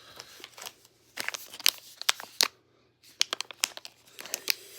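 Crinkling and tearing of a coin pack's wrapper being ripped open by hand: a run of sharp crackles, with a brief pause about halfway through.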